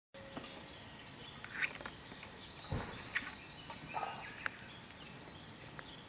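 Twigs burning in open flame in a small folding steel fire stove, crackling with a few short sharp pops scattered through.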